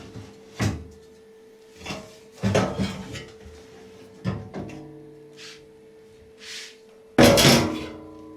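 Knocks and clatter of washing-machine panels and parts being pulled off and set down during disassembly, several separate clunks with a loud, ringing bang about seven seconds in. A faint steady tone hums underneath.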